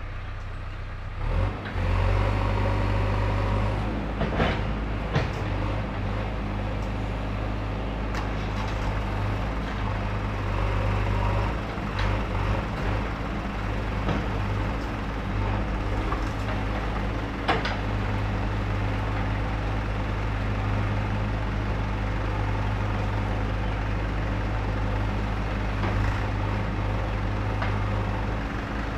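JCB backhoe loader's diesel engine running under load as the backhoe arm digs and lifts soil, the engine rising about a second and a half in and holding steady. A few sharp knocks from the bucket and arm sound along the way.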